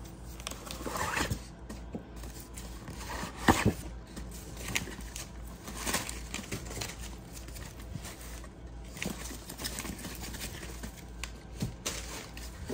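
Tissue paper and cardboard packaging rustling and crinkling as a new tote bag is handled, in irregular scrapes and crinkles, with one sharper knock about three and a half seconds in.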